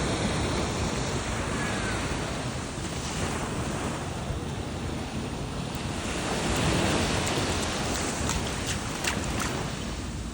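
Sea waves washing in and out, with wind buffeting the microphone; one wave swells loudest about two-thirds of the way through.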